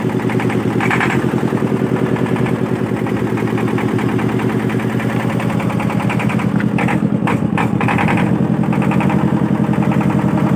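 Motorboat engine running steadily with a fast, even chugging.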